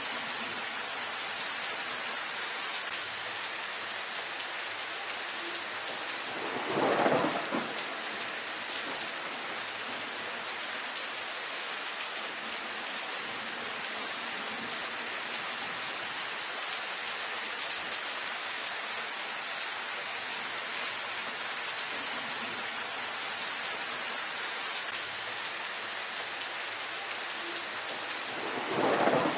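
Steady rain falling on leafy foliage, an even hiss throughout. Twice, about seven seconds in and again near the end, a brief, louder burst about a second long rises above the rain.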